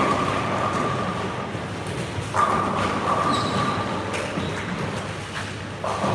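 Bowling alley din: bowling balls rolling down the lanes and pins clattering. The din swells suddenly three times: at the start, about two and a half seconds in, and near the end.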